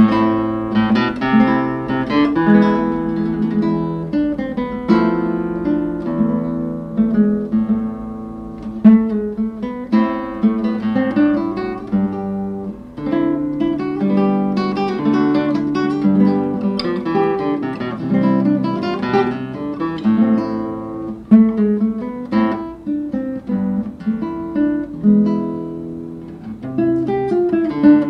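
Acoustic guitar music, plucked notes and strummed chords, starting abruptly.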